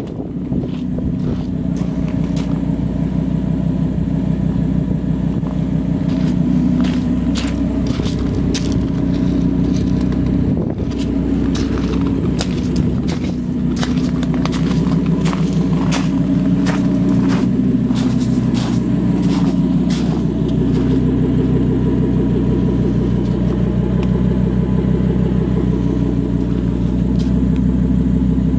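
Audi R8 Spyder's 5.2-litre V10 with a Capristo exhaust idling steadily, a low even running note, with a scatter of short sharp clicks through the middle stretch.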